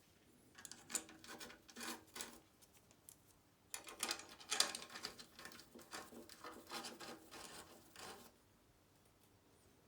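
Hands working a new rubber seal and the fuel pump into place on a motorcycle fuel tank: rubbing, scraping and light clicks in two spells, the second longer, with a short pause between.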